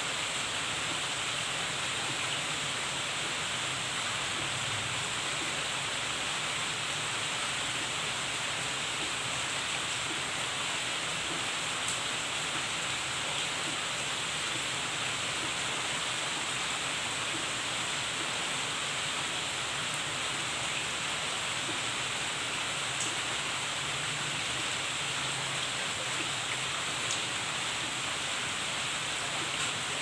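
Steady rain falling on palm fronds and garden foliage: an even hiss with a few sharper drop ticks now and then.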